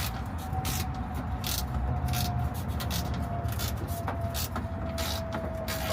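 Hand socket ratchet clicking in short, irregular strokes as bolts under a truck dash are worked, over a steady low rumble and a faint steady whine.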